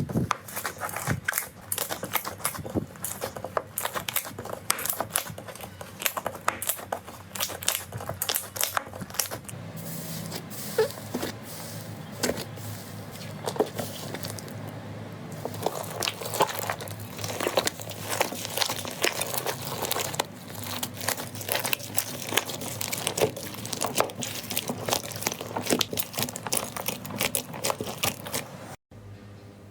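Slime being worked by hand, a dense irregular run of crackles and small pops with squishing. The sound breaks off briefly near the end.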